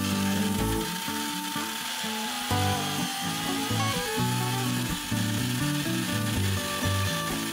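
Background music over a drill press boring into plywood, the motor's steady whine running beneath the tune.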